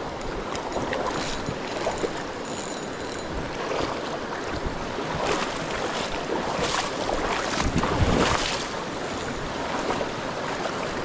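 River water rushing steadily, with wind buffeting the microphone and a few short louder bursts in the middle.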